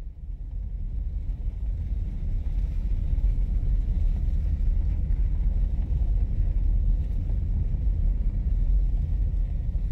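Low, steady rumble of a vehicle driving on a gravel road, heard from inside the cab. It fades in over the first second or two.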